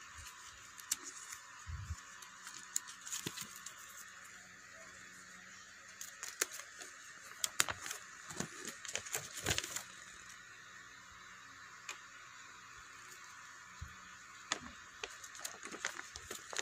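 A folded paper instruction manual being unfolded and handled, crinkling and crackling in bursts, loudest near the middle, over a steady hiss.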